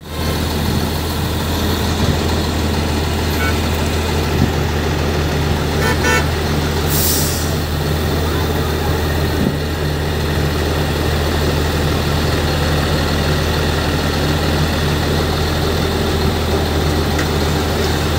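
Heavy diesel engine running steadily, heard from inside the cab of a slow-moving vehicle. A short horn toot sounds about six seconds in, followed by a brief hiss.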